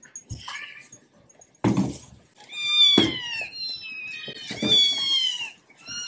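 Kittens meowing: two long, high calls that fall in pitch, with a thump about a second and a half in and a few soft knocks as they tussle on a wooden floor.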